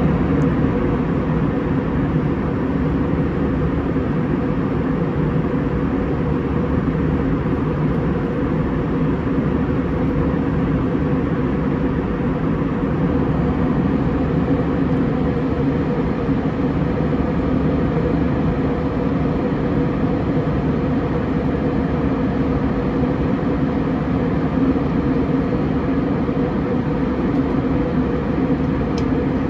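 Airbus A320 cabin noise in flight, heard from a forward window seat: the steady roar of the jet engines and airflow over the fuselage, with a low, even hum under it.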